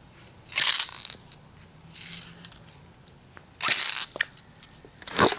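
A 2K clear-coat aerosol can being pressed and knocked down onto a concrete floor on its red base button, which pierces the inner hardener capsule and activates the two-part clear coat. About four short, sharp, noisy bursts, the loudest just past halfway, with a single click after it.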